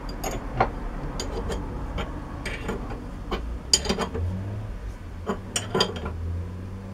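Irregular sharp metallic clinks and taps over the steady low hum of a metalworking lathe's motor running.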